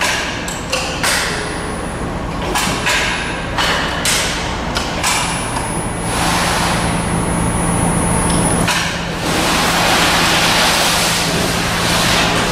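Sheet-metal folding machine humming steadily while a formed sheet-metal panel is handled, giving several sharp knocks and clanks in the first few seconds; an even rushing noise takes over in the second half.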